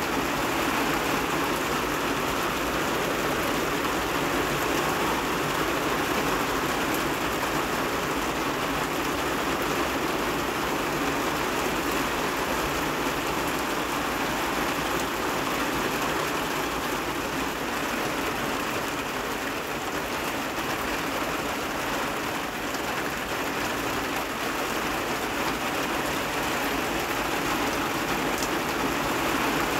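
Heavy rain falling steadily, an even rush of sound that does not let up.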